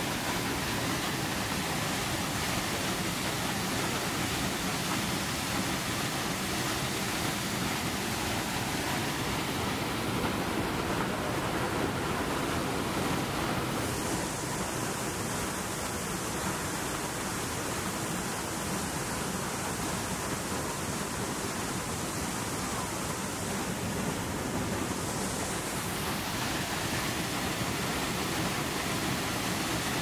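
Water of a frozen waterfall rushing steadily through an opening beneath its ice curtain, a constant, even hiss of falling water with no breaks.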